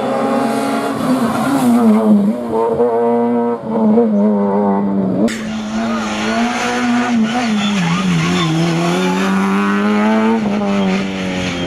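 Citroën Saxo A6 rally car's four-cylinder engine revving hard on a tarmac stage. Its pitch repeatedly climbs and drops as it shifts gear and lifts off for corners, with a sudden break about five seconds in.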